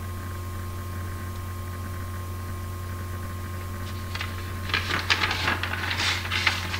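Steady electrical hum with a thin high tone throughout; about four seconds in, a couple of seconds of dry, scratchy rustling and clicking from paper or a pen being handled on a desk.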